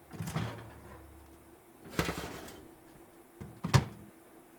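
A cartoon character hiccuping three times, short sharp hics about two seconds apart, the last one loudest.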